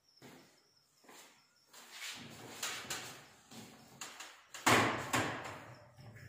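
Kitchen cabinet doors and a tall pull-out pantry unit with wire baskets being handled, giving a series of knocks, clicks and brief scrapes. The loudest is a sharp knock nearly five seconds in.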